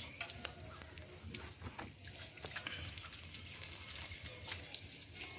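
Open fire crackling with irregular sharp pops under chicken pieces grilling on a wire mesh.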